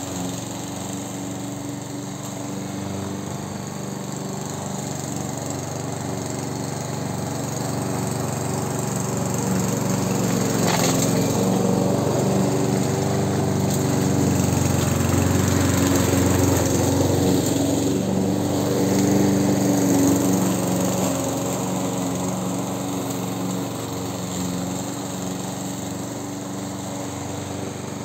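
Amber Line-B Class 4-in-1 petrol walk-behind lawn mower running steadily while cutting grass. It grows louder through the middle as it passes close, then eases off again.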